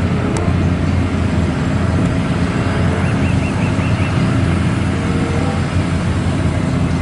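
Truck engine running steadily with a low rumble and road-traffic noise, as an added vehicle sound effect.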